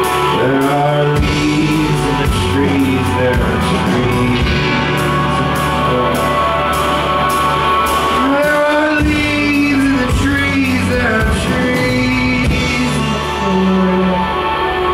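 Live rock music: a man sings a melody line while playing acoustic guitar, backed by a band with steady drum and cymbal strokes.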